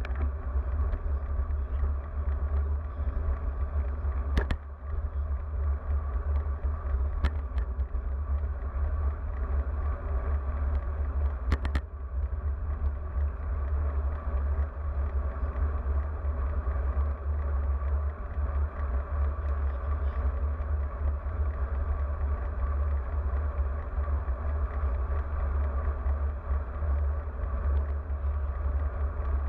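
Steady low wind rumble on an action camera's microphone, with tyre and road noise, as a road bike rides along a street. A few sharp clicks break through in the first half.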